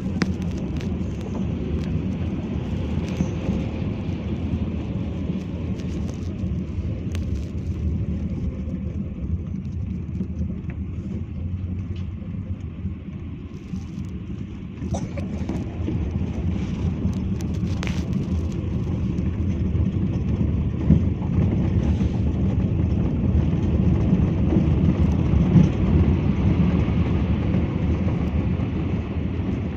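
Steady low engine and tyre rumble heard from inside a car driving slowly over a rough gravel road, with a few sharp knocks and rattles from the uneven surface.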